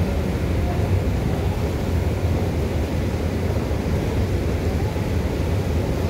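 Moving walkway rumbling steadily underfoot while being ridden, a low, even drone with no change in pace.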